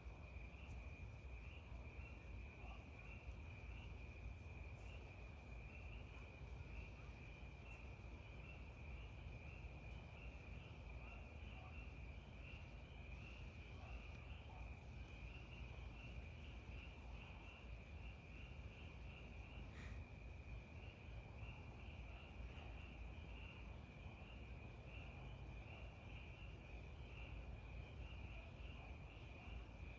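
Crickets chirping, a faint steady pulsing trill, over a low background rumble.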